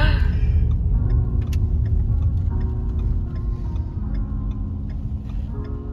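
Low rumble of a car heard from inside the cabin while driving, with background music of held notes changing every second or so and faint ticking about twice a second.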